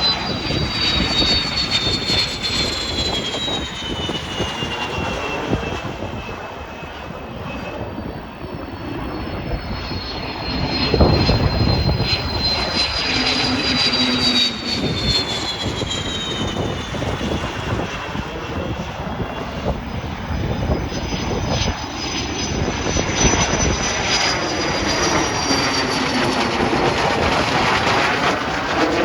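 Display aircraft flying past, a dense engine rush with a high whine that slides down in pitch three times as it passes, loudest about eleven seconds in.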